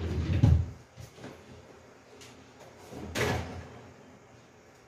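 A kitchen drawer being pushed shut, with a heavy thud about half a second in, followed by a softer handling noise about three seconds in.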